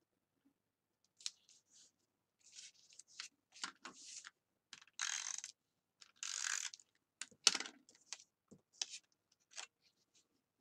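Paper pieces rustling and sliding as they are glued down onto a card, with a run of short scraping swipes and light clicks.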